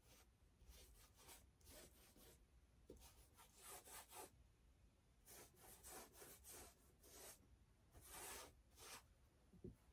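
Faint swishes of a paintbrush dragged across a stretched canvas: about a dozen short, irregular strokes, with a soft knock near the end.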